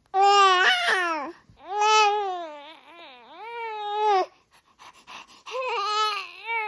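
A baby babbling loudly in three long, drawn-out vocal stretches, the pitch sliding up and down, with short pauses between them.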